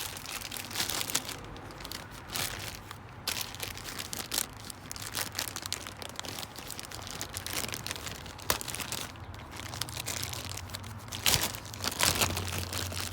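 Crinkling and rustling of packaging as a new truck light switch is handled, irregular crackles throughout, over a low steady hum.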